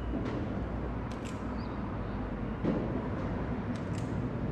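Wire strippers working on wiring-harness wires, giving about half a dozen short, sharp clicks and snips as the insulation is cut and pulled off, over a steady low background hum.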